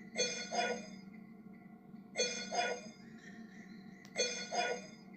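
Music made from a sampled cough: a processed cough hit with a ringing pitched tone, played twice in quick succession and repeated every two seconds, three times, over a steady low drone.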